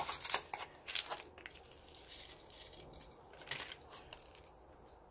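Short crackly rustles and scrapes of a plastic container and gritty potting soil being handled as soil is tipped in and pressed around a potted succulent: a cluster in the first second and another about three and a half seconds in, faint in between.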